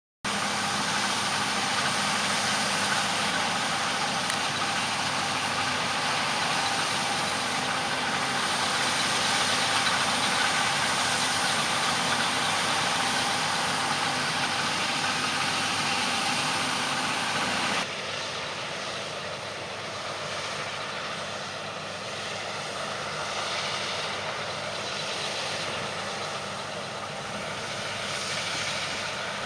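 Large farm harvest machinery running steadily in the field, engine noise with a constant drone. It drops abruptly to a quieter, more distant machine sound about eighteen seconds in.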